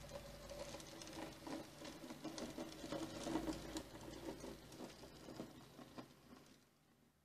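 H0e-scale model steam locomotive running past on its track: a steady electric-motor and gear whir with irregular small clicks from the wheels on the rails, growing louder to about the middle and then fading as it moves away.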